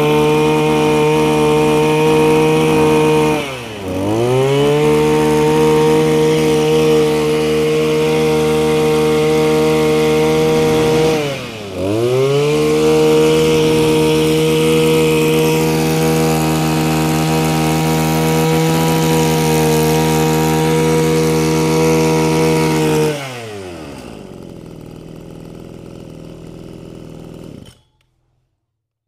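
Mitsubishi TL261 26cc two-stroke brush cutter engine running at high revs. The throttle is let off twice, so the pitch dips and climbs straight back, and near the end it drops back to a much quieter idle.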